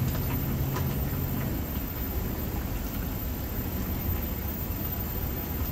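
Steady hiss from the stovetop: a gas burner running under a pot of soup at a simmer, with a low steady hum in the first second and a half and a few faint ticks.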